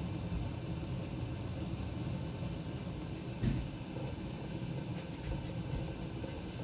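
Lidded stockpot of water on the stove, rumbling steadily as it heats toward a boil, with a single click about three and a half seconds in.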